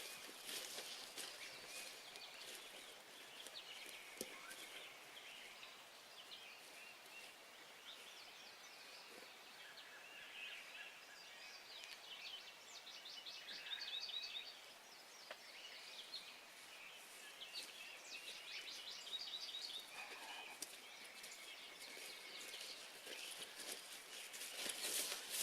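Faint songbird calls and trills in a field, several birds chirping on and off, with a run of quick repeated trills about halfway through. A few light knocks or rustles stand out near the start and again near the end.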